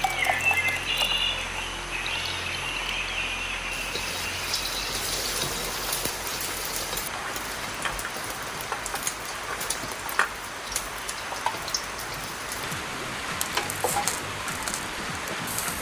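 Steady hiss of water with scattered sharp drip-like ticks. Background music with a bird chirping over it runs at first and fades out about four seconds in.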